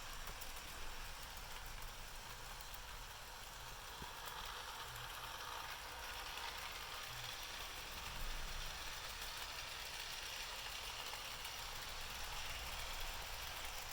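Bachmann Spectrum GP30 and GP35 model locomotives running on track: a steady hissing whir of motors and wheels with a low rumble underneath, and a faint click about four seconds in.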